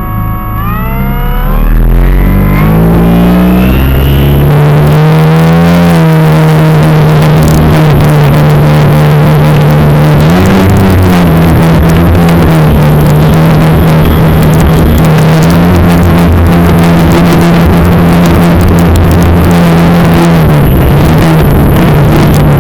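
RC plane's motor and propeller spinning up, rising in pitch over the first few seconds, then running steadily at high throttle with a loud rushing hiss. The pitch wavers briefly a couple of times. It is heard very close from inside the plane.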